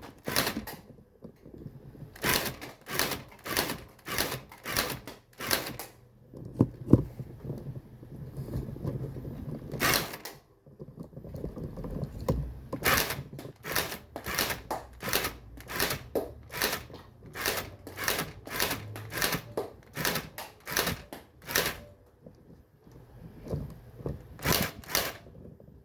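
Toy M416 rifle firing single shots as sharp clicks, about two a second, in strings broken by short pauses.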